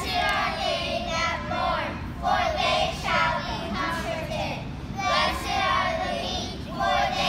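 A class of young children reciting the Sermon on the Mount together in unison, their voices coming in short chanted phrases with brief pauses between them.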